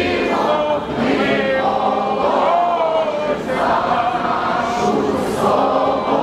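A large crowd singing together in unison, holding long notes.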